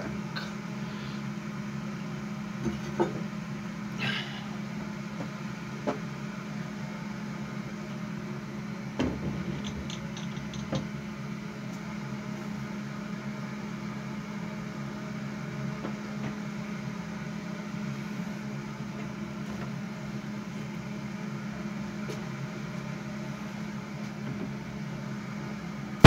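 A steady mechanical hum, with a few faint clicks and knocks scattered through it.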